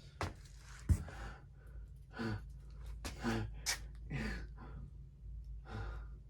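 A person making several short breathy sighs and grunting vocal sounds. There is a sharp click about a second in, and a low steady hum runs underneath.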